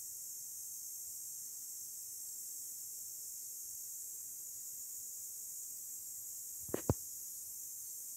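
Faint steady high hiss, broken near the end by two sharp clicks in quick succession, the second louder.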